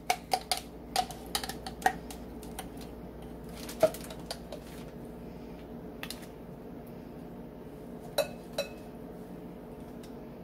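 Metal spoon clinking and scraping while minced garlic is scooped from a glass jar into a plastic measuring spoon. There is a quick run of light taps at first, a sharper clink about four seconds in, and two ringing clinks a little after eight seconds.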